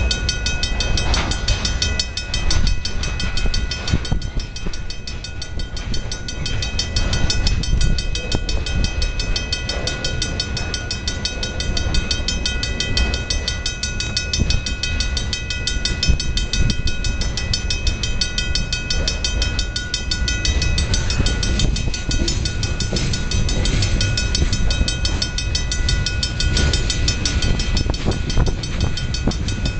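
Freight train of loaded centerbeam lumber flatcars rolling past, wheels clacking and knocking over the rails with a steady rumble. A steady high ringing tone sits over it throughout.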